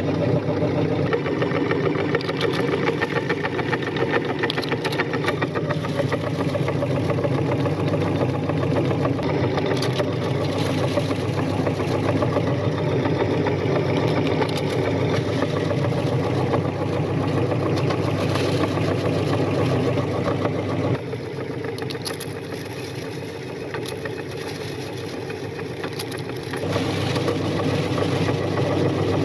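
Electric meat grinder switched on and running steadily as it grinds crunchy cookies, its motor hum overlaid with a fine rattling grind. The sound drops noticeably quieter for about five seconds past the two-thirds mark, then comes back up to full level.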